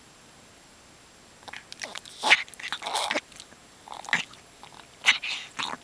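A dog's troubled breathing: a run of short, irregular, noisy breaths in clusters, starting about a second and a half in.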